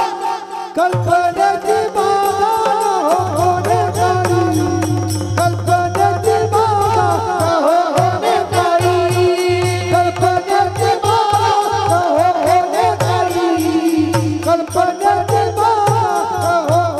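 Devotional kirtan singing by male voices, a wavering chanted melody, over a fast steady beat of small brass hand cymbals (taal) and a low drum.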